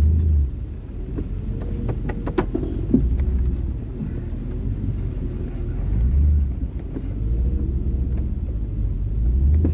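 Four-wheel-drive truck engine running while it maneuvers, a deep rumble that swells every few seconds, with scattered knocks and clicks.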